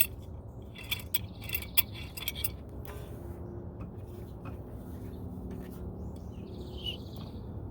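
Light metallic clicks and clinks as a C-clamp and the old brake pad are set against the rear brake caliper to push the piston back in, during the first few seconds. After that there is only a low steady hum.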